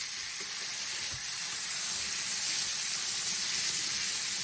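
New York strip steaks sizzling in a hot frying pan, just turned to sear the second side: a steady hiss that swells a little about a second in, with a few faint knocks.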